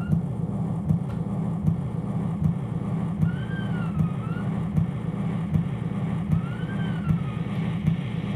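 Turntables playing a scratched record label and an off-center Morse code record: a dense, gritty low rumble with a click about every 0.8 s as the record turns, and a thin whistling tone that comes and goes, slowly swooping up and down in pitch.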